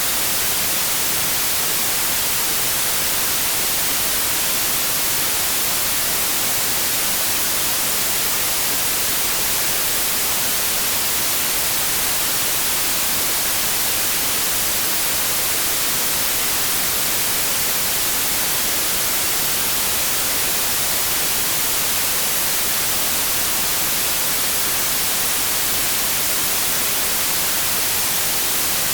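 Steady synthetic white noise: an even, unchanging hiss.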